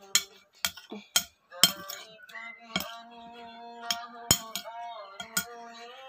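Spoon clinking against a plate or bowl during a meal: sharp, irregular clicks, about ten in six seconds. A song with singing plays quietly underneath.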